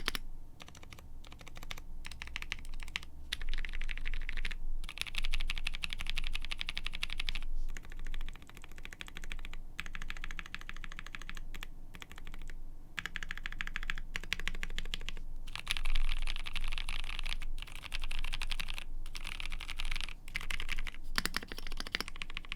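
Typing on a custom mechanical keyboard with lubed NovelKeys Cream linear switches, a polycarbonate plate, a gasket-mounted polycarbonate case and PBT keycaps. Fast runs of key clacks come in bursts separated by brief pauses.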